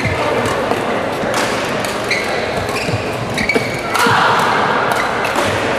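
Badminton rally: rackets striking the shuttlecock in sharp smacks, with shoes squeaking briefly on the court mat in the middle. Crowd noise echoes throughout and swells about four seconds in.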